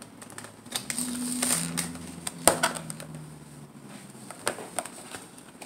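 Plastic blister packaging of a toy pack being handled: a run of scattered clicks and crackles, with one sharp knock about two and a half seconds in. A low steady hum sounds under it for a couple of seconds near the start.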